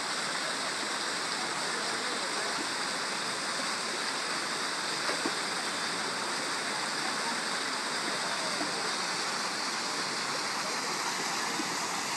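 Steady rushing of water running down a tube waterslide and pouring out of its end into the pool.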